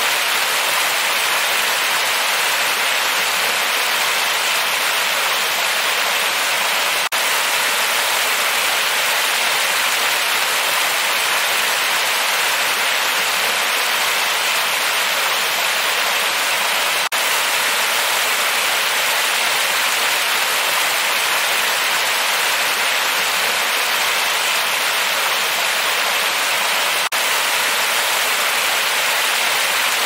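Water pouring over a weir's straight lip into churning white water: a steady, hissing rush. The rush dips briefly three times, about ten seconds apart.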